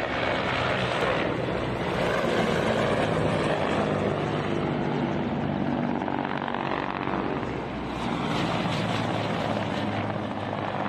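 Helicopter flying low overhead: a steady rotor and engine noise, dipping briefly about seven seconds in, then rising again.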